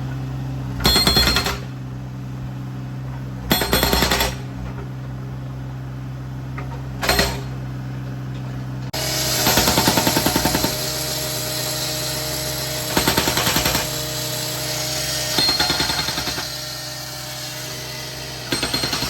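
A jackhammer breaking up a concrete sidewalk in short bursts of rapid hammering, several times over, above the steady drone of a running engine.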